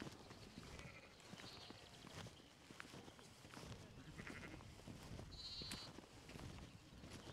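Sheep and lambs bleating faintly, a few short quavering calls.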